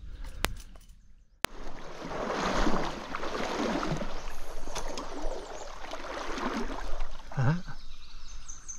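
Stream water rushing and splashing close to the microphone, starting abruptly about a second and a half in after a quieter opening with a few faint clicks.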